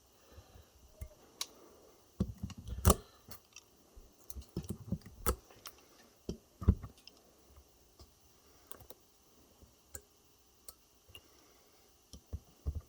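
Irregular sharp clicks and small metallic knocks of pliers working the welded nickel strip off the cells of an ebike battery pack. The loudest snaps come about three, five and nearly seven seconds in, sparser after.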